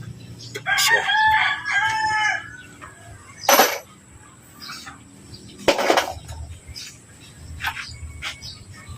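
A rooster crows once, a drawn-out multi-part call, followed by two short, sharp noisy bursts a couple of seconds apart.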